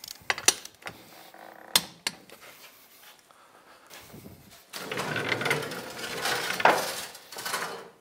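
A few sharp metallic clicks from a torque wrench tightening the wheel's lug nuts, then a floor jack being lowered and pulled out across the steel lift table, a rattling, scraping sound lasting about three seconds.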